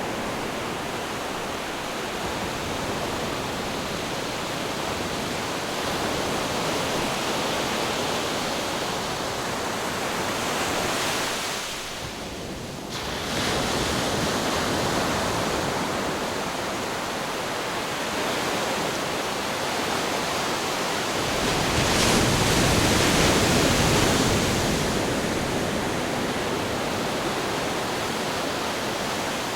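Ocean surf and wind: a steady rush of breaking waves that dips briefly about twelve seconds in and swells louder, with a deeper rumble, around twenty-two seconds in.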